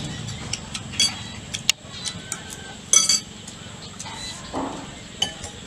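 A few short, sharp clinks of spoons against ceramic rice bowls while people eat, the loudest about three seconds in.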